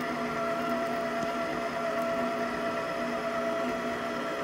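Zuccie electric stand mixer motor running at one steady speed, a constant whine with several pitched tones.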